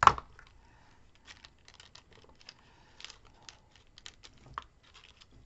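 Paper flower petals being handled and pressed together, giving light rustling and small scattered clicks, with one sharp knock at the very start.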